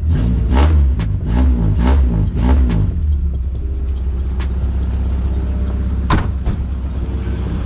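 Toyota GX71 Mark II's inline-six engine, just started after a hard start on a weak battery, being blipped with quick revs about twice a second for the first three seconds, then settling into a steady idle. There is a single sharp click near the end.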